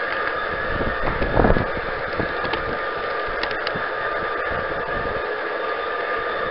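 Steady whine and hiss of a G-gauge garden-railway train running, picked up by a camera riding on the train, with faint clicks from the wheels and one louder bump about a second and a half in.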